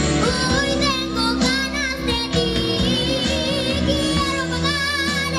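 A six-year-old boy singing a Spanish-language love song into a microphone over accompanying music, with a wavering vibrato on the held notes.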